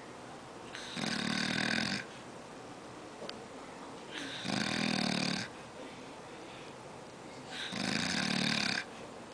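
An old man snoring: three snores about three and a half seconds apart, each lasting about a second, a low buzz with a hiss above it.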